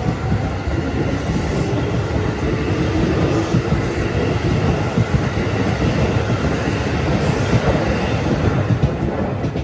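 Electric train passing close by, a steady loud rumble of wheels on the rails.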